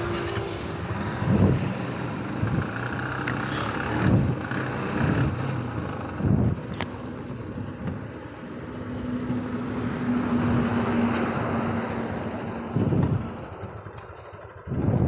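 Motorcycles running along a highway at low speed, the Bajaj Pulsar NS200's single-cylinder engine under the rider with wind and road noise, rising briefly louder a few times as the throttle or passing traffic swells.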